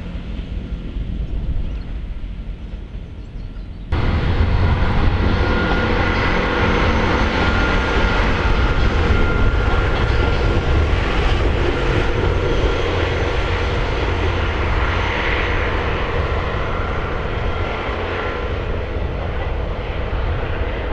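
Diesel train engines running with a steady drone; the sound jumps abruptly louder about four seconds in.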